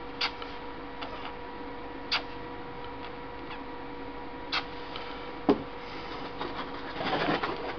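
Small plastic paint bottles clicking against the lacquered wooden vase as dots of paint are dabbed on, four sharp clicks a second or two apart, then a short rustle near the end. A steady electrical hum runs beneath.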